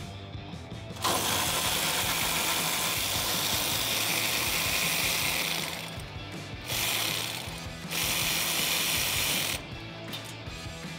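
Cordless electric ratchet with a 12 mm socket on an extension running in three bursts, a long run of about five seconds and then two short ones, backing out bolts.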